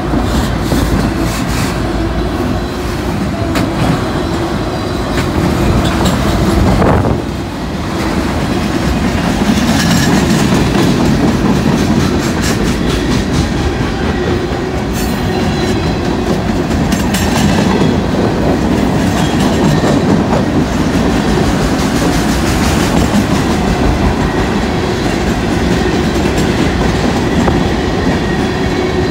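Mixed freight train of autorack, gondola and covered hopper cars rolling past close by: a steady rumble of steel wheels on rail, with rapid clicking and clacking as the wheels pass over rail joints. The sound dips briefly about seven seconds in.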